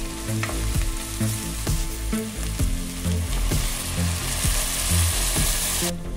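Food sizzling in a hot pot of browned chicken thighs and vegetables as red wine is poured in to deglaze it. The sizzle grows louder in the second half and cuts off suddenly near the end. Background music with a steady beat plays underneath.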